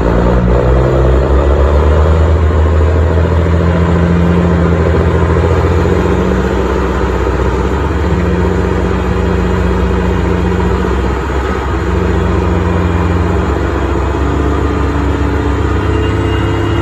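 Heavy vehicle engine running under load, a steady low drone whose pitch shifts a little now and then.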